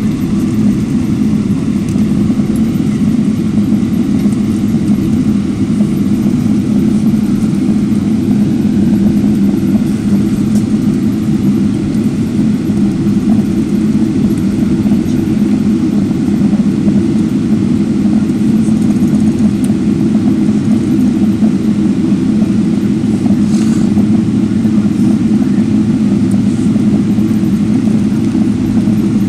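Airliner cabin noise while taxiing: the jet engines at idle heard from inside the fuselage as a steady, unchanging low hum.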